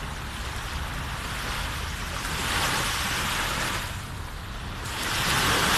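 Small sea waves breaking and washing up a sandy shore, the surf swelling about halfway through and again near the end, over a steady low rumble.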